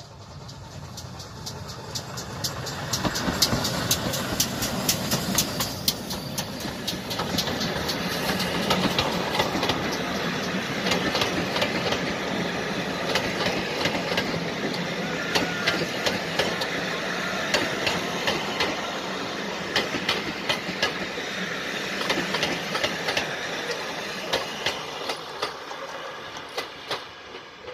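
Steam-hauled passenger train passing close by, its wheels clicking over the rail joints. The sound builds over the first few seconds and fades away near the end.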